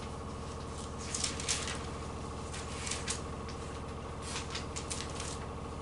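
Thin Bible pages being leafed through in short, soft rustles, over a steady low electrical hum.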